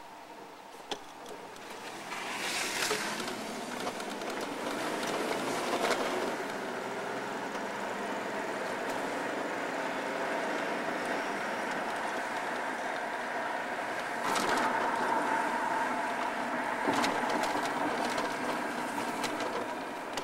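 Motor-vehicle engine and road noise, a steady hum that swells and eases several times, loudest a couple of seconds in and again about three-quarters through.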